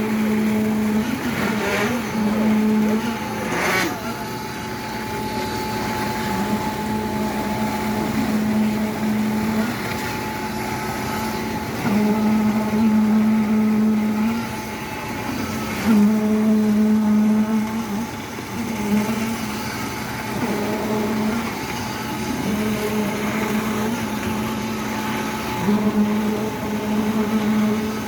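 Concrete pump running, with a steady machine hum and a low tone that comes in for two or three seconds at a time and drops away between. There is one sharp knock about four seconds in.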